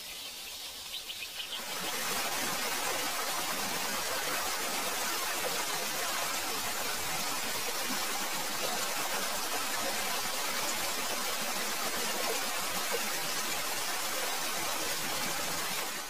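Forest stream rushing over rocks: a steady, even rush of water that comes in about two seconds in, after a few faint bird chirps, and cuts off suddenly.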